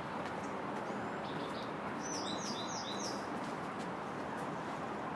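A bird giving a quick run of four short, falling high chirps about two seconds in, over a steady background hiss of outdoor noise.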